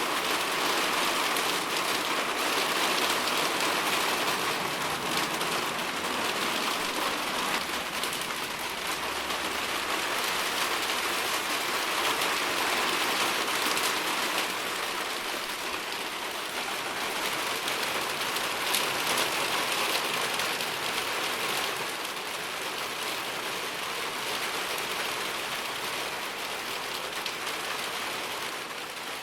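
Steady rain falling on surfaces, an even hiss of many drops with no distinct separate impacts.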